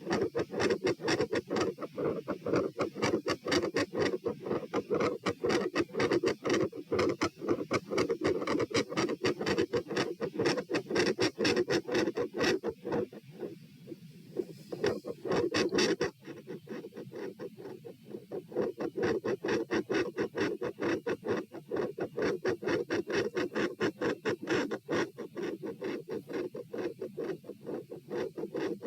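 Fast heartbeat heard through a stethoscope on the chest at the pulmonic area: a rapid, unbroken run of lub-dub beats with scratchy contact noise. About halfway through, the beats suddenly drop in loudness.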